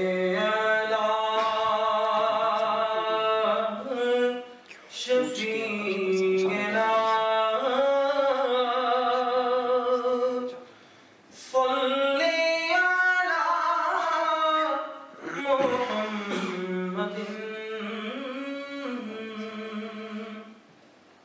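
A man's voice, unaccompanied, singing a slow melodic recitation in four long phrases, with long held notes that bend up and down and a short breath between phrases.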